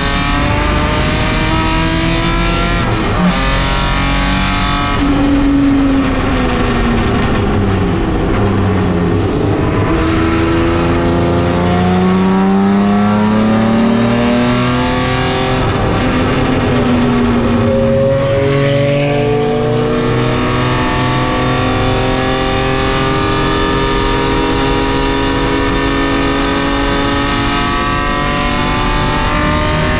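Race car engine heard from inside the cockpit at speed. The revs drop for a few seconds a third of the way in, climb again through gear changes around the middle, then hold high and rise slowly down a long stretch.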